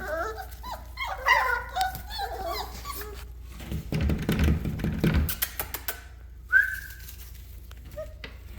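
Litter of five-and-a-half-week-old puppies whining and yelping in many short, wavering squeals during the first couple of seconds, then a stretch of low scuffling and bumps about four to five seconds in, and a single whine near the end.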